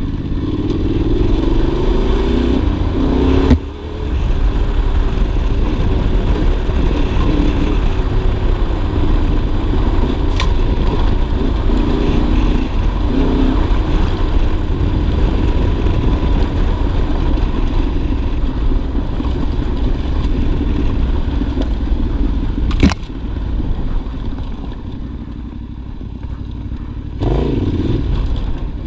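Yamaha Ténéré 700 World Raid's 689 cc parallel-twin engine running under way along a dirt track, with wind and tyre noise. A sharp knock comes about three and a half seconds in and another about 23 seconds in. After the second knock the engine is quieter for a few seconds, then the throttle opens again near the end.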